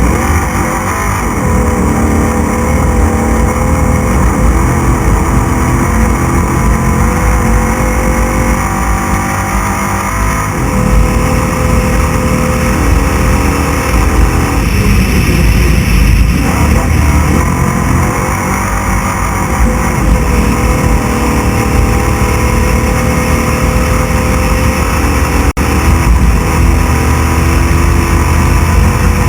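Class 6100 desert race truck running flat out, heard from onboard: loud, continuous engine and drivetrain noise with road and wind noise. It is interrupted by a split-second dropout near the end.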